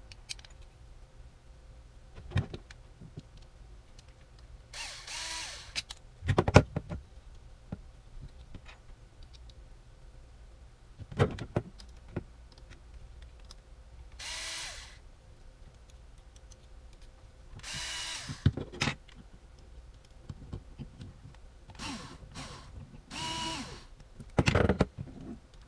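Ryobi cordless drill/driver driving M3x30 screws into a 3D-printed plastic drive module, running in about five short bursts of motor whine. Sharp knocks from handling the parts fall between the bursts. The screws are stiff and hard to drive in.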